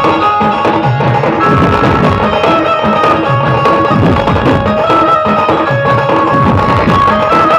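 A dhumal band playing loud music: a held, stepping melody line over fast, dense drumming.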